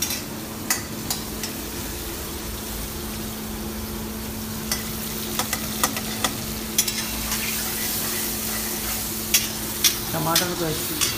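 Chopped onions and tomatoes frying in oil in a black wok, sizzling steadily while a spatula stirs them, with sharp clicks now and then as it strikes the pan. A steady low hum runs underneath.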